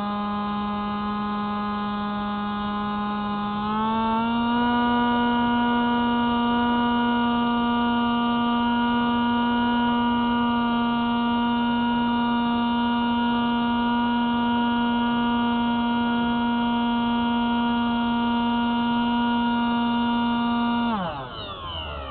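Spyhawk FPV model plane's electric motor and propeller running with a steady hum. It steps up in pitch and gets louder about four seconds in, holds there, then winds down sharply in pitch near the end as the motor slows.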